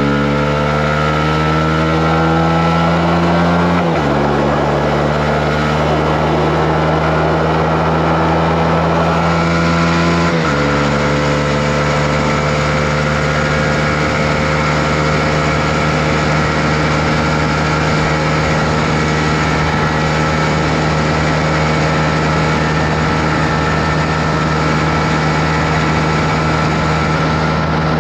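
Honda CB125R's single-cylinder engine accelerating through the gears: the revs climb, drop at an upshift about four seconds in, climb again and drop at a second upshift about ten seconds in, then hold steady at a constant cruising speed.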